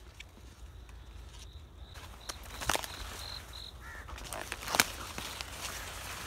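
Corn leaves rustling and brushing past as someone moves quickly through a cornfield, over a low rumble of wind on the microphone. Two sharp knocks of handling or footfall stand out, the second, just under five seconds in, the louder.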